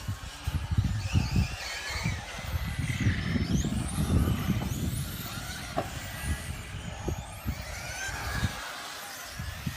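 Electric motor of a VBC Wildfire D06 radio-controlled touring car whining high and thin, rising and falling in pitch as it speeds up and slows down, with low gusty wind buffeting on the microphone that fades near the end.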